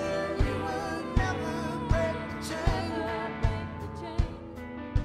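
Background music: a pop song with a singer over a steady drum beat, about one strong beat every three-quarters of a second.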